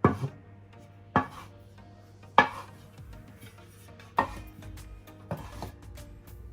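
Sharp knocks from kitchen utensils, about one a second and six in all, each with a short ring, over light background music.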